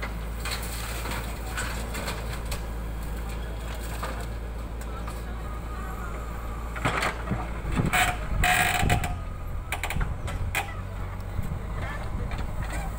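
Diesel engine of a JCB 3DX backhoe loader running steadily as the backhoe arm digs and dumps soil. About seven to nine seconds in come the loudest sounds: metallic clanks and a short creaking squeal from the boom and bucket.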